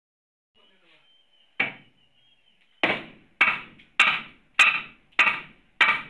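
Hammer striking wooden roof framing to knock old boards loose: one blow, then a steady run of six blows a little over half a second apart, each ringing briefly. A faint high squeal comes before the run.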